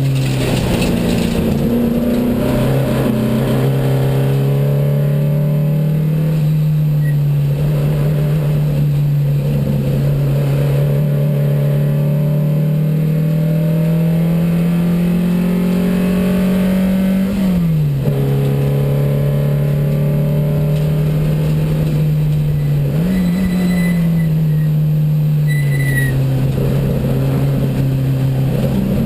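A 1972 Porsche 914 race car's 2270cc flat-four engine running hard on track, heard from inside the cockpit. Its pitch climbs slowly for about 17 seconds and then drops sharply. It holds low, jumps up suddenly at about 23 seconds, then falls away again.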